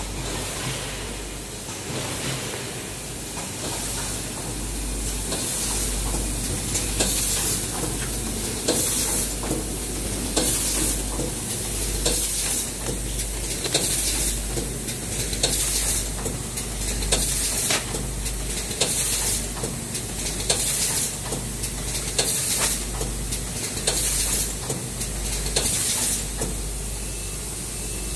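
Automatic rotary zipper-pouch packing machine running over a low steady hum, with a short burst of hiss about every one and a half seconds, one per pouch cycle, and light clicking and clattering of its mechanism.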